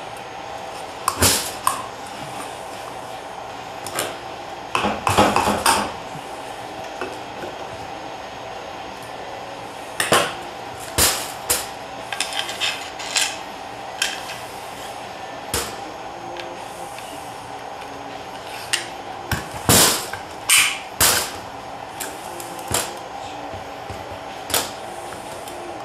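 Irregular metal clinks, clicks and knocks as small steel valves, pins and a screwdriver are handled against a TH350 transmission valve body and a diamond-plate steel bench, with a steady hum underneath.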